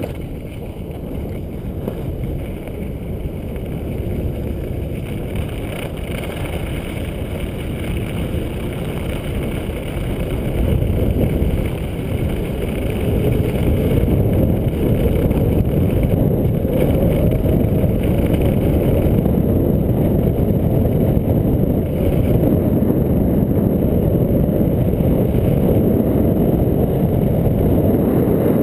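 Wind buffeting a body-worn camera's microphone during a downhill ski run, with the hiss of skis sliding on groomed snow. The rushing grows louder about halfway through and stays loud.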